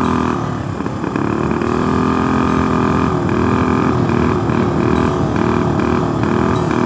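Tillotson 212cc single-cylinder four-stroke engine of a TrailMaster Hurricane 200X minibike with a Super Pipe exhaust, held at wide-open throttle. It dips briefly about half a second in, then from about three seconds in it surges and stutters about three times a second instead of pulling cleanly. This is the spitting and sputtering that the rider puts down to carburetor jetting that needs adjusting, possibly for the high altitude.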